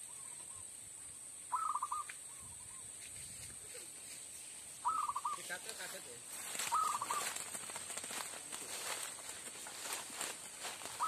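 Zebra dove (perkutut) cooing in short, rapid trills, three times, each followed by a few softer notes. A fluttering rustle of a snared dove beating its wings runs under it over the last several seconds.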